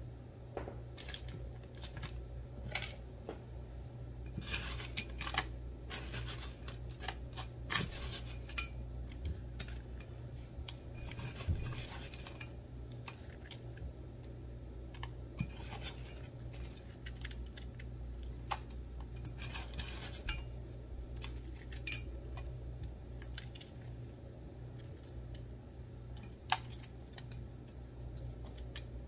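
A metal spoon scrapes and clinks against a stainless steel bowl of crushed ice, with the ice crunching and rattling, in several short bouts. There are two sharp single clinks near the end.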